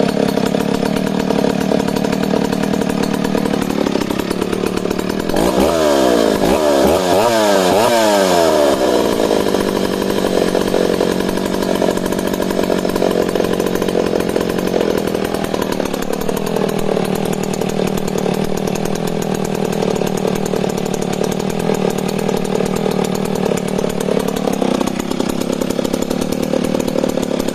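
Vintage West German Dolmar CA two-stroke chainsaw running, in sound condition: it idles, then is revved up and down in quick blips about five to nine seconds in. It holds a higher speed, drops back to idle around sixteen seconds, and picks up again near the end.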